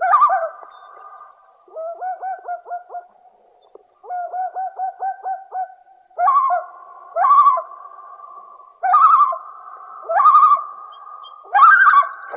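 Common loon calling: two quavering runs of quick pulsed notes in the first half, then a series of five louder repeated calls about a second apart, joined by a long steady note.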